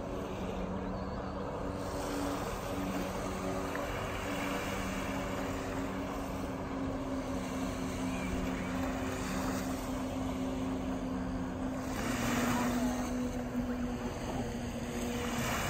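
Jet ski engines running at speed, heard from the shore as a steady droning hum that shifts slightly in pitch. A rush of noise comes about twelve seconds in and again near the end.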